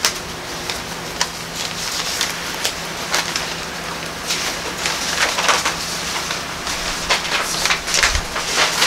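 Pages of a Bible rustling and crackling as they are turned and leafed through, irregular and busiest in the second half, over a low steady hum.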